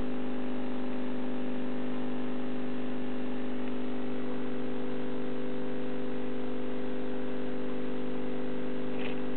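Steady electrical hum from running aquarium equipment, several low pitches held together without change. A faint brief tick comes near the end.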